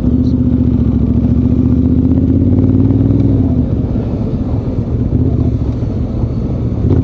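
Motorcycle engine running at road speed, its note holding steady, then easing off about halfway through.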